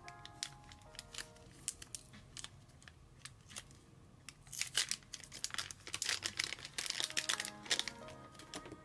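A small clear plastic bag crinkling and tearing as it is pulled open by hand, in dense crackles that get loudest in the second half. Soft lo-fi music with held notes plays underneath.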